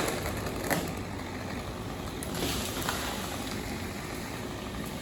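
An engine idling steadily, with a couple of sharp knocks in the first second and a brief rushing noise about halfway through.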